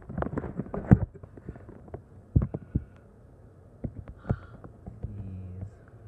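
Scattered knocks and thumps of a handheld camera being handled and bumped against a surface, with a faint low hum late on.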